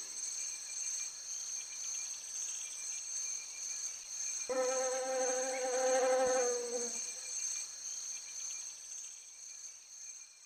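Sound effect of a flying insect's wings buzzing, a steady high buzz. About halfway through a single held note with overtones joins it for a couple of seconds and slides down as it stops. Everything fades out near the end.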